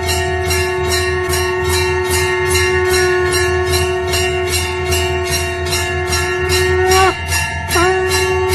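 Temple bells rung in a fast steady rhythm, about four strikes a second, the ringing running on between strikes. Under them a long held note breaks off briefly about seven seconds in and resumes.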